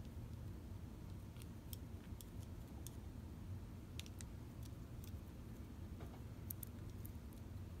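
Faint, irregular light clicks of small VW speedometer parts being handled and fitted together, over a low steady hum.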